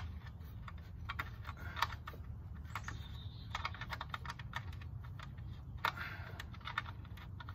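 Irregular light clicks and taps as hands work small hardware pieces and a set screw into the leg joint of a teak chair frame, over a steady low hum.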